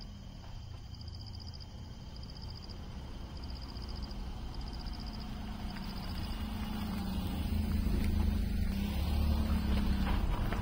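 Car engine running with a steady low hum that grows louder over the last few seconds. A high, faint pulsing chirp repeats about once a second during the first half.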